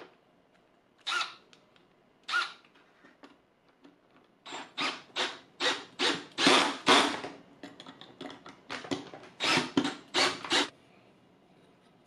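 About a dozen short scraping strokes, a fraction of a second each: two lone ones early, then a quick run of strokes about half a second apart, and a last cluster near the end.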